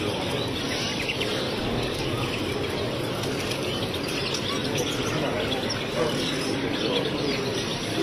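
Many caged canaries chirping and singing at once, a dense scatter of short high chirps over a steady background din.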